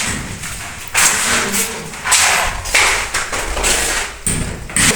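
A run of irregular thuds and scraping knocks, several a second apart.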